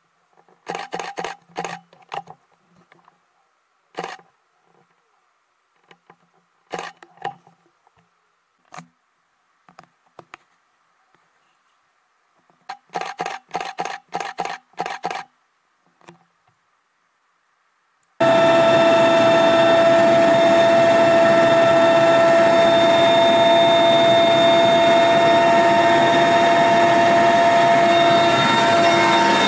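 Scattered short sounds in quick runs with silences between, then, about 18 seconds in, a sudden switch to the loud, steady turbine and rotor noise of an Mi-8 helicopter heard from inside its cabin, with steady whining tones over it.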